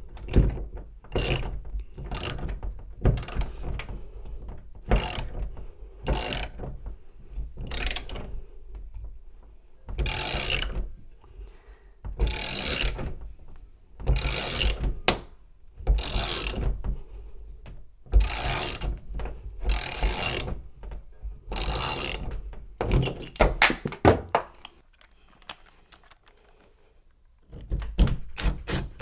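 Socket ratchet wrench being worked in repeated clicking strokes, about one a second, tightening a cylinder puller that is drawing the core out of a Kwikset smart key deadbolt. The strokes stop for a few seconds near the end, then start again.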